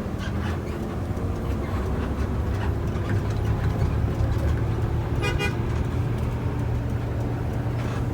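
Intercity bus's engine and road noise as a steady low hum inside the cabin while driving. A short high horn toot about five seconds in.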